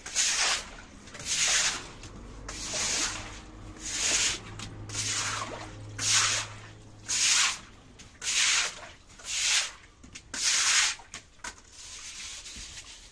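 A series of about ten rasping, scraping strokes, roughly one a second, each lasting under a second.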